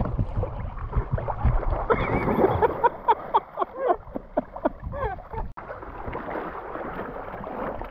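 Lake water splashing and gurgling around a paddleboard, with a heavy thump at the start and a busy run of bubbling sloshes in the middle. It becomes a steadier wash of water and wind after a cut about five and a half seconds in.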